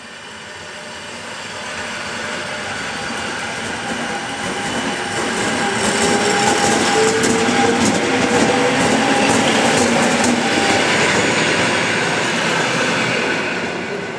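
Koleje Dolnośląskie electric multiple unit moving past close along the platform. Its rumble grows louder over the first six seconds and then stays loud. A steady whine runs through it, and a run of sharp clicks from the wheels comes in the middle.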